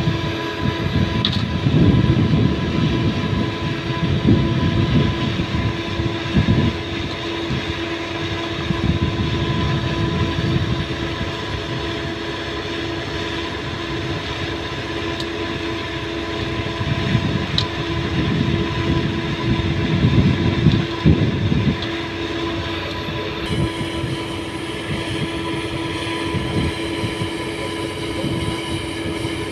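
Doosan hydraulic crawler excavator's diesel engine running with a steady hum, its low rumble swelling and easing several times as the bucket pushes bamboo stakes down into soft peat.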